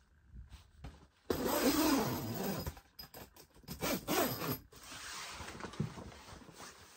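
Canvas wall-tent door flap rustling and rubbing as it is handled and pulled open. It starts suddenly about a second in and comes in uneven scraping bursts.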